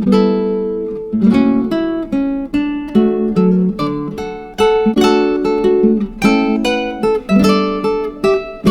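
Music: an acoustic guitar playing plucked chords and single notes, each one ringing and dying away before the next.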